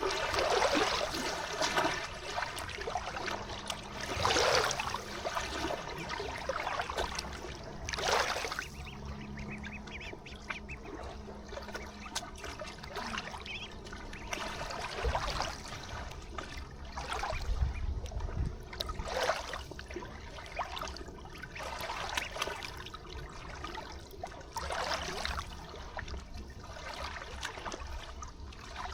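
Ducks quacking every few seconds, the loudest calls near the start, over a steady trickle of river water.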